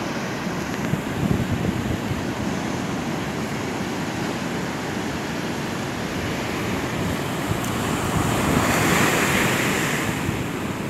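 Ocean surf breaking and washing up the beach, with wind buffeting the microphone. The wash swells louder about eight seconds in, then eases.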